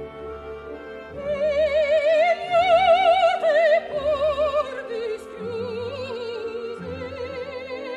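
Operatic soprano singing a slow legato line with wide vibrato, rising to its highest, loudest held notes about two to three seconds in and then descending, over a soft orchestral accompaniment of repeated pulsing chords.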